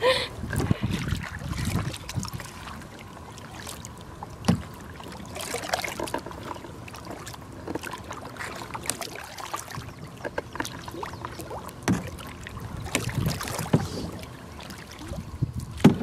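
Kayak paddling: the blades of a double-bladed paddle dipping and pulling through calm water, with splashing and dripping, and a few sharp knocks, one a little after four seconds in, one near twelve seconds and one at the very end.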